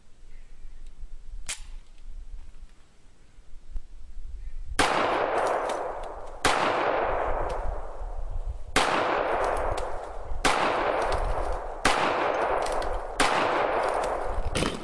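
Para-Ordnance GI 1911 pistol in .45 ACP fired in slow, steady single shots: six shots about one and a half to two seconds apart, each with a long fading echo, starting about five seconds in, with a seventh shot at the very end.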